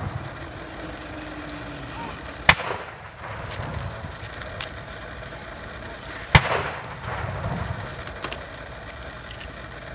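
Second and third rifle volleys of a three-volley military honors salute, about four seconds apart. Each is a single sharp crack of rifles fired together, with an echo trailing off after it.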